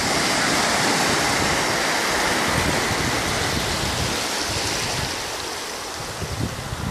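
A small sea wave breaking at the water's edge and its foam washing up over the sand: a steady rushing hiss that slowly fades over the last few seconds.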